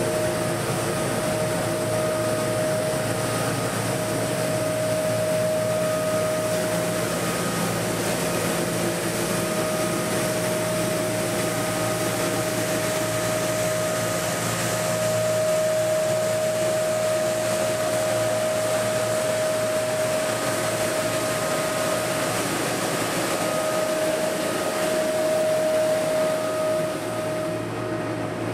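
Tecnosystem TS 6000 road sweeper running steadily while working behind an asphalt milling machine: a continuous mechanical noise with a steady whine over it.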